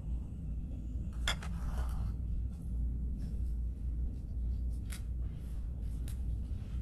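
A few light, sharp snaps and clicks as fresh basil leaves are picked off their stems over a bowl of pho, over a steady low hum.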